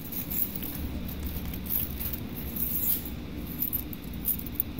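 Keys and a Kwikset SmartKey lock cylinder being handled: scattered light metallic clicks and clinks over a steady low hum.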